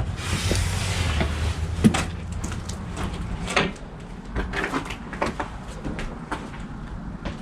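Slow, careful footsteps on old wooden floorboards, with scattered creaks and knocks. A brief rush of noise opens it.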